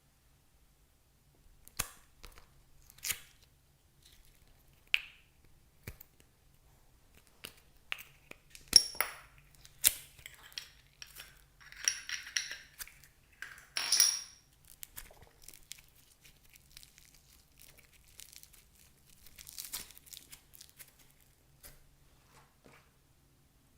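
Intermittent handling noises: sharp clicks and taps with short bursts of crinkling and tearing, as of plastic packaging and containers being handled. The noises are busiest in a cluster from about nine to fifteen seconds in.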